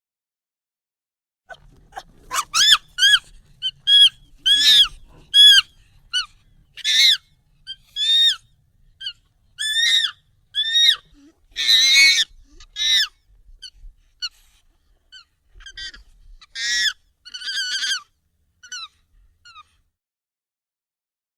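Monkey calls sped up and pitched up: a run of short, high calls, one or two a second, each rising and then falling in pitch. They start a couple of seconds in and die away near the end.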